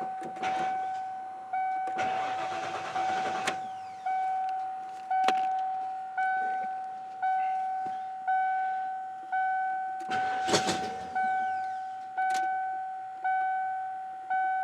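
A 1994 Ford F-350's warning chime dinging about once a second with the key switched on, broken by short bursts of noise about two seconds in and again about ten seconds in as the new starter is tried.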